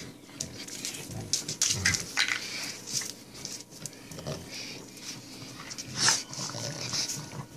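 Two dogs play-fighting and tugging at a toy on a tile floor: irregular dog noises and scuffling with many short, sharp clicks, loudest about six seconds in.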